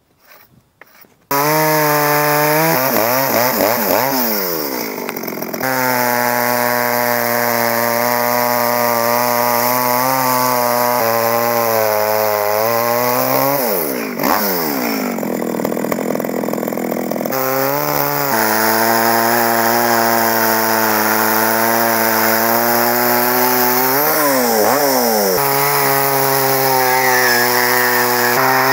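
Faint scraping strokes of a hand tool on wood, then about a second in an Echo two-stroke chainsaw starts and runs at high revs as it carves into a log. Its pitch dips and rises several times as the throttle and the load on the chain change.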